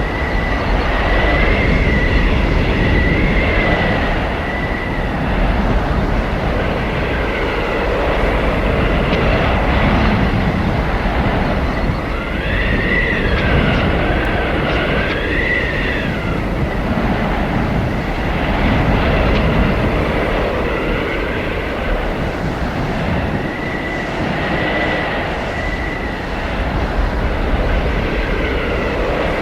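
Blizzard wind blowing hard: a deep, steady rumble that swells and eases, with high whistling howls that glide up and down in spells, the strongest about halfway through.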